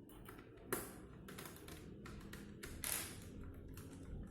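Small screwdriver turning a hard-disk mounting screw into an Asus X453S laptop chassis: scattered light clicks and taps, with a sharp click under a second in and a longer scraping rasp about three seconds in.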